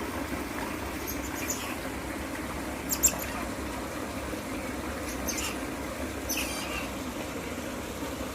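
Asian small-clawed otters giving short, high-pitched squeaks and chirps several times over a steady low rushing background. A sharp click about three seconds in is the loudest sound.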